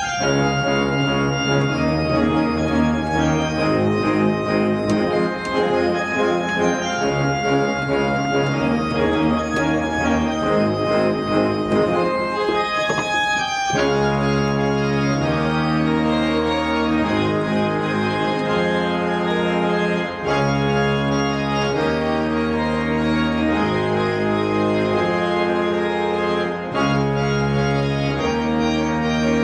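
Organ music of held chords changing every second or two, shifting abruptly to a lower register about halfway through.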